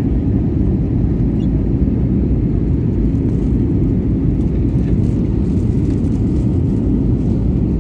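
Steady low rumble of an airliner's engines and rushing air, heard from inside the passenger cabin during the approach to landing.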